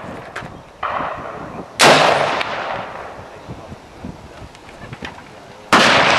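A single shot from a Württemberg Jägerbüchse M/60 percussion rifle, loaded with 4 grams of powder behind a 13.9 mm bullet and fired on the set trigger, about two seconds in, its blast ringing away over about a second. Near the end another abrupt loud burst begins.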